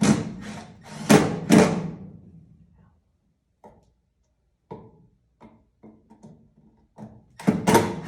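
Hard knocks and clunks, four in quick succession at the start, then scattered light clicks and another run of loud knocks near the end: hands working wiring and hardware into a wall switch box.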